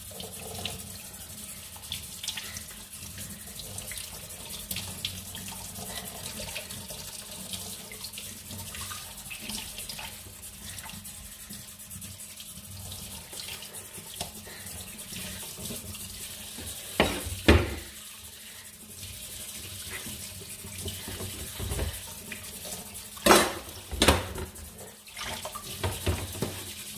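Tap water running into a kitchen sink while fish is rinsed and cleaned by hand, with small scattered clicks. A few loud knocks stand out, about two-thirds of the way in and twice near the end.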